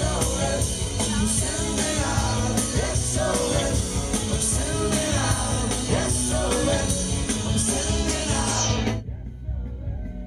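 Live rock band with lead vocal, drums, cymbals, bass and electric guitar, heard through the festival PA from the crowd. About nine seconds in the drums and cymbals stop abruptly and only a few held notes ring on, more quietly.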